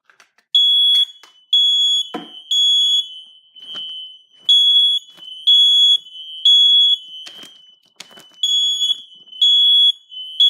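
Ceiling smoke alarm sounding its high-pitched alarm in the temporal-3 pattern: three half-second beeps, a pause, and again, set off by test smoke sprayed at its sensor. A fainter, slightly lower tone carries on between the beeps, and a few knocks and clicks come through, with one heavier thump about two seconds in.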